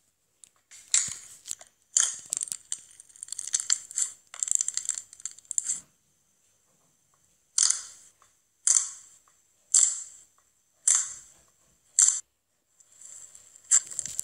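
Hands squeezing and pressing slime. Dense crackling and small popping of air bubbles runs for several seconds. After a short pause come five separate presses about a second apart, each a sharp sticky pop that fades, and the crackling starts again near the end.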